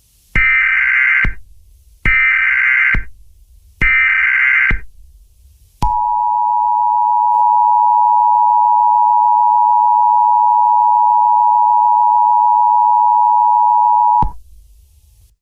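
Emergency Alert System tones: three one-second bursts of buzzing SAME digital header data, evenly spaced, then the steady two-tone EAS attention signal, which holds for about eight seconds and cuts off sharply.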